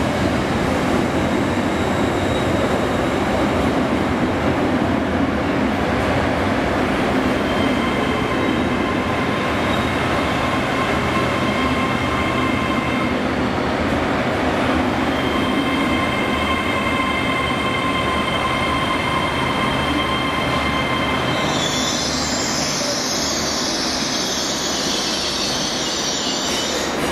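Great Western Railway Hitachi intercity train running slowly into the platform: a steady rumble of wheels on rail, with thin, high squealing tones from the wheels and brakes coming and going through the middle. A brighter, higher hiss joins over the last five seconds.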